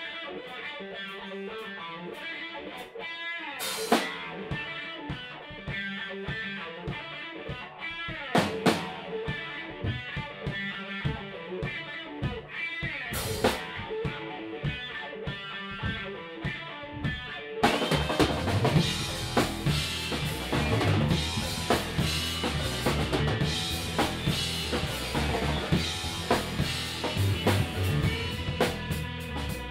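Live rock band jamming on electric guitar, bass guitar and drum kit. The guitar leads over light drumming with a few cymbal crashes, then about 18 seconds in the bass and full drums come in and the band plays louder.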